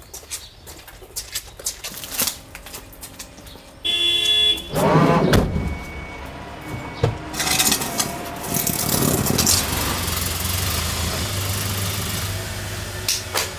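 A few knocks of wood being handled, then a short horn-like toot about four seconds in. After it a van's engine runs and the van pulls away, a steady rumble with tyre noise.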